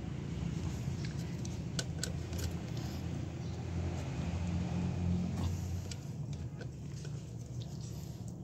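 A low, steady vehicle engine rumble swells about halfway through and then eases. Over it come a few light metallic clinks from a long-handled socket wrench tightening a truck's axle-shaft flange nuts.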